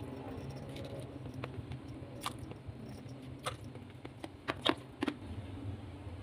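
Water simmering in an electric multicooker pot with shrimp keropok lekor sticks cooking in it: a low steady hum and faint hiss with a few sharp pops, the loudest about four and a half seconds in.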